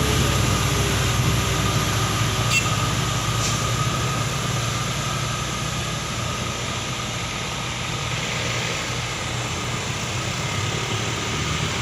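Heavy diesel truck traffic: a low, steady engine drone with road and tyre noise as trucks pull up the incline, easing a little in the middle and building again toward the end.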